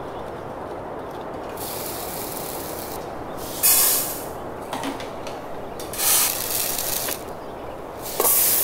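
Dry uncooked rice grains pouring in three short hissing rushes, the first the loudest: rice measured out of a countertop rice dispenser into a cup, then tipped into a rice cooker's inner pot.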